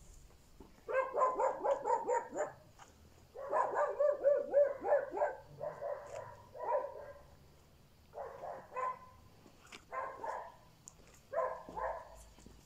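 A dog barking in about six bouts of quick, rapid-fire barks, with short pauses between them.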